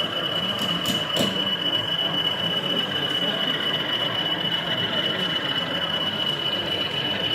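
Exhibition-hall background of crowd murmur with a steady high-pitched whine, under the running of a model diesel locomotive on the layout; a few sharp clicks about a second in.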